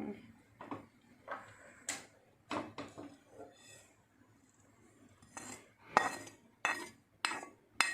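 A metal spoon knocking and scraping against a metal pan while garlic is stirred in it over heat. There are scattered clinks at first, then a more regular run of sharp strikes about every half second in the second half.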